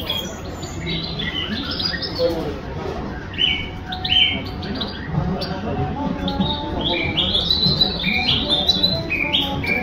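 Song thrush singing: a run of short, clear whistled notes and phrases, busier in the second half, over a steady low background hum.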